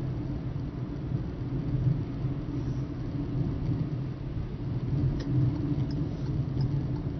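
Steady low engine drone and road rumble heard from inside a moving vehicle's cabin. A few faint, evenly spaced ticks come in near the end.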